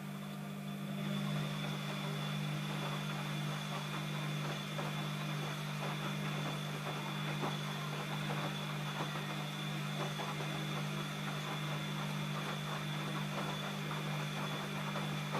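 ELIN A 100 E washing machine running: a steady electrical motor hum over a busy crackling, swishing noise, building up over the first second and holding steady for about fifteen seconds before cutting off abruptly at the end.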